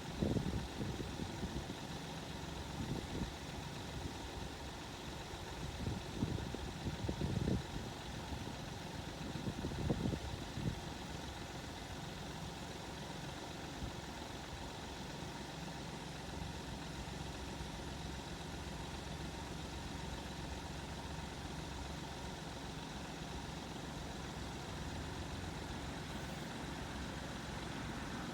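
A motor vehicle engine idling steadily, with a few uneven low rumbles in the first ten seconds or so.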